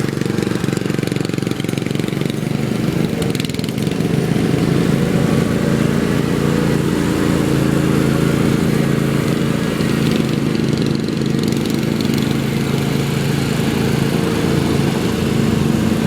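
Riding lawn mower engine running steadily at an even speed.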